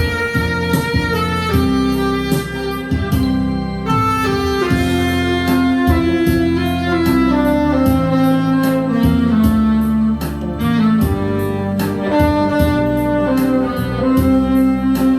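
Saxophone playing a slow, sustained melody over a backing track with a steady drum beat.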